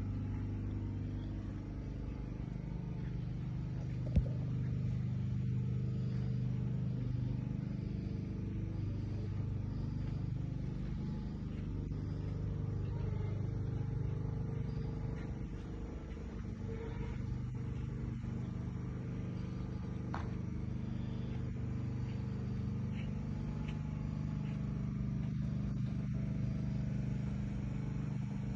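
Steady low engine hum, with one sharp knock about four seconds in.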